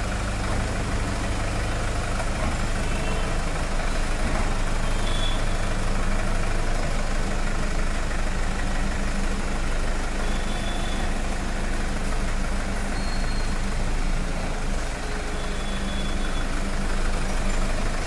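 Toyota Fortuner's engine running steadily as the SUV is moved slowly forward and back, with no clunk from the front suspension: the knock on braking and steering has gone now that the control arm bushes have been replaced.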